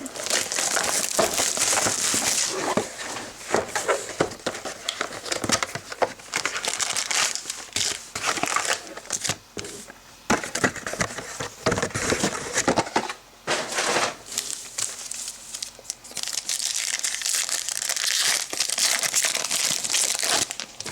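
Plastic wrapping on a trading-card hobby box crinkling and tearing as the box and its packs are opened, in irregular crackly bursts with brief pauses.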